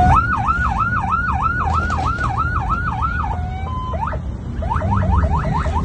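An electronic siren yelping: quick repeating sweeps, about three a second, for roughly three seconds, then a brief steady tone and a faster run of rising whoops near the end. Underneath is a low, steady engine rumble from cars pulling away.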